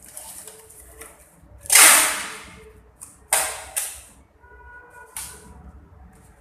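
Short bursts of gas hissing from a split air conditioner's copper refrigerant line. The first and loudest comes about two seconds in and dies away over most of a second; shorter bursts follow about three and a half and five seconds in.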